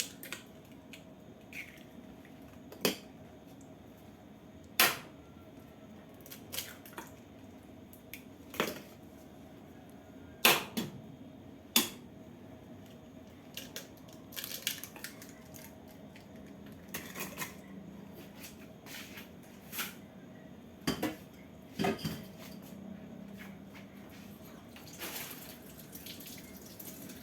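Eggs being cracked against a blender jar and kitchenware being handled: a dozen or so sharp, irregular knocks and clinks, with smaller clicks between them.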